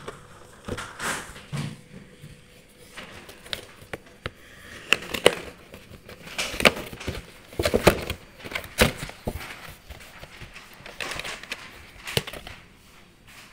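Cardboard gift box being handled and opened by hand: irregular scraping, rubbing and knocking of cardboard, loudest about halfway through.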